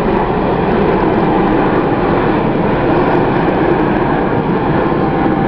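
Formation of fighter jets passing overhead: a loud, steady rumble of jet engines.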